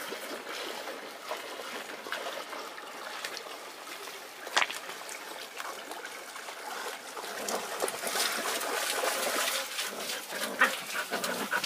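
A retriever swimming and then wading through shallow river water, the splashing growing louder about eight seconds in as it comes ashore, over the river's steady trickle. Near the end a dog gives a few short whines.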